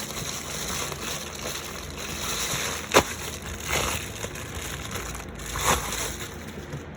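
An Amazon package being handled and opened: packaging rustling, crinkling and tearing, with a sharp click about three seconds in and a few louder rips after it.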